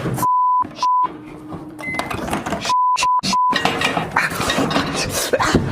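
Edited-in censor bleeps: a pure steady beep at about 1 kHz cuts in three times near the start and three more times in quick succession about three seconds in. The bleeps silence all other sound, and jumbled noisy sound plays in the gaps between them.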